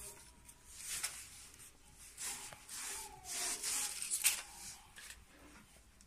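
Self-adhesive PVC sealing strip being rubbed and pressed down by hand: a run of dry, soft swishing rustles, with one sharper click about four seconds in.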